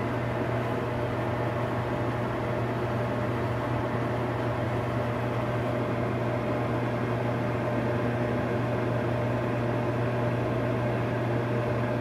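Microwave oven running: a steady low hum under an even fan-like hiss. Its turntable is turning smoothly on a roller wheel repaired with a plastic washer.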